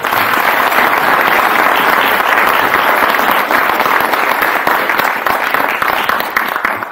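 Audience applauding, many people clapping at once; the applause tapers off near the end.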